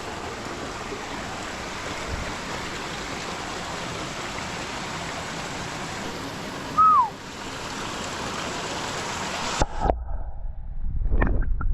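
Mountain stream rushing steadily, with one short falling whistle about seven seconds in. Near the end it cuts off abruptly to a low rumble with a few knocks.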